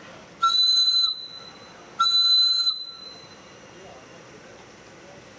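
Two short blasts of a scale live steam locomotive's steam whistle, a steady high pitch over a breathy hiss, each under a second long and about a second and a half apart. Two short blasts are the railroad signal for moving off.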